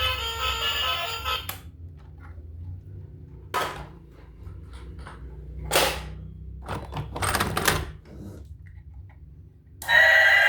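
Music that cuts off about one and a half seconds in. Then a few sharp clicks and knocks, several close together about seven seconds in, over a low hum. A loud new sound starts near the end.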